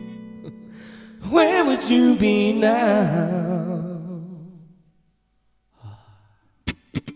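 A man singing a long, wavering held vocal line that fades away, over an acoustic guitar chord left ringing. A short breath follows, then acoustic guitar strumming starts again near the end.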